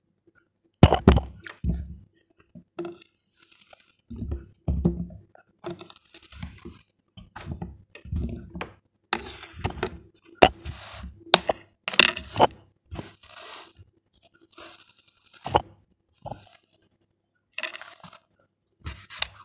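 Kitchen knife cutting and scooping through packed kinetic sand: soft crumbling and dull thuds as cut cubes of sand break off and drop onto the board, with sharp clicks where the blade knocks the board. It is picked up close by a microphone lying on the board.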